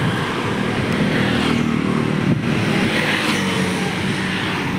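Road traffic: a motor vehicle's engine running close by, a steady hum over traffic noise.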